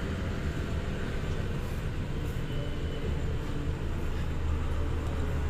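Steady low background rumble with a faint hiss over it, swelling slightly in the second half.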